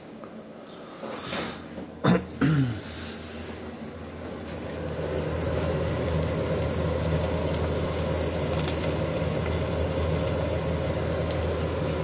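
A steady machine-like hum builds up about four seconds in and then holds evenly. Before it, about two seconds in, come two short knocks.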